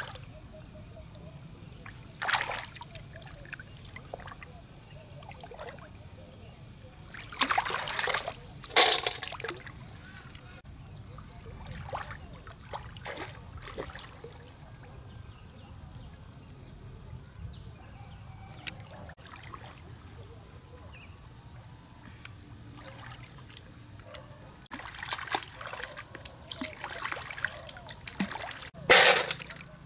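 Water splashing and sloshing in irregular bursts, with quieter trickling between them; the loudest splashes come near the end.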